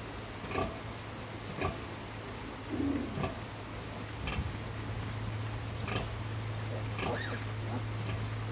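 A nursing sow and her suckling piglets grunting and squealing, short calls about once a second, one rising squeal a little past the seven-second mark. A steady low hum runs underneath, growing stronger about halfway through.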